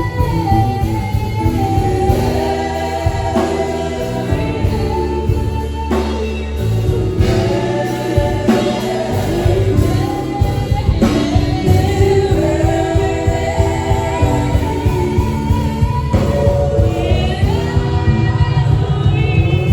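Gospel worship song: sung vocals over instrumental backing with a steady bass line.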